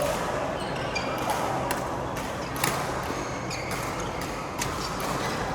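Badminton rally: rackets striking the shuttlecock about once a second, sharp hits with short high squeaks between them.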